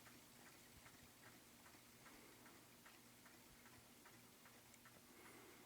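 Near silence: faint, regular ticking, about three ticks a second, over a steady low hum.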